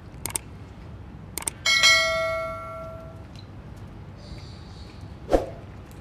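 Subscribe-button animation sound effect: a couple of mouse clicks, then a notification bell ringing once and fading over about a second and a half. A short thud near the end.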